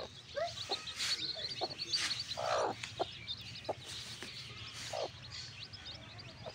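Mother hen clucking to her chicks in a string of short low clucks, one drawn out a little longer about two and a half seconds in, over a steady stream of high, rapid chick peeping.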